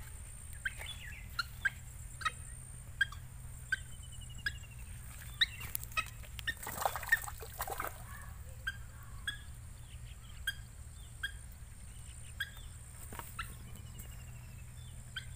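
Short, sharp bird calls repeating about once or twice a second, with a few brief falling trills. About halfway through comes a louder rush of splashing water as a white-breasted waterhen flaps on the river's surface.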